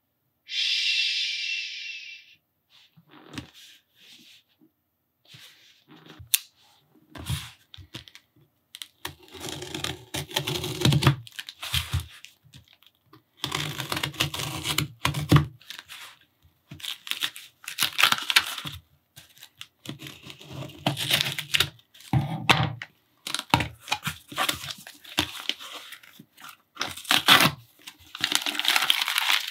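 Packing tape being torn and a cardboard shipping box opened by hand: irregular rips, scrapes and crinkles of cardboard and paper. A short hiss comes about a second in.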